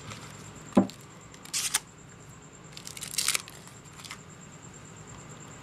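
Carabiner-style clips of a nylon rifle sling being worked by hand: one sharp click about a second in, then a few short rustles of the strap and clips and a faint click.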